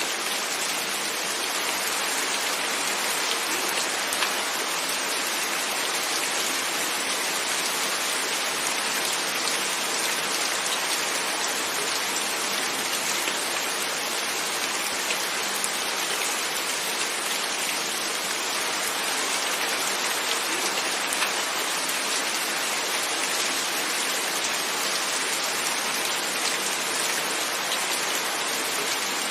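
Steady rain on a window, an even hiss with individual raindrops tapping against the glass.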